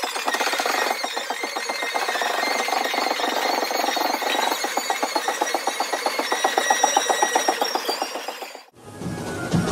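Fast, even drumming: a dense roll of strokes, many per second. Near the end it cuts off abruptly and a different drum beat with a deep bass comes in.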